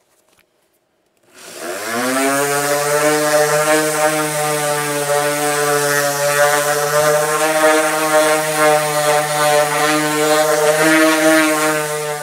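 Electric random orbital sander switched on about a second in, spinning up to speed, then running steadily as it sands a hardwood cutting board with 100-grit paper, the first, coarsest grit.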